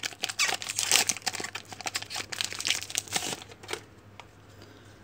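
Crinkling of a trading-card pack's wrapper as it is torn open and handled, in a quick run of crackles that stops about four seconds in.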